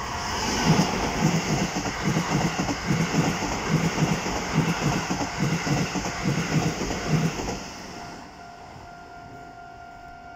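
Keikyu New 1000 series electric train passing over a level crossing, its wheels clacking over the rail joints in a steady rhythm for about seven seconds. The passing noise then drops away, leaving the crossing's warning signal ringing.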